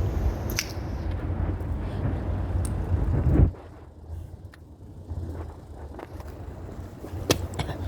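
Low rumbling outdoor street noise that drops off sharply about three and a half seconds in. It is quieter after that, with a few sharp clicks near the end.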